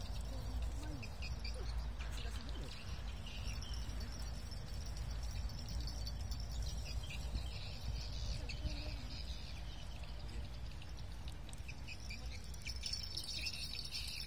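Outdoor ambience: a steady low rumble of wind on the microphone, with small birds chirping in scattered short bursts, busiest near the start, midway and near the end.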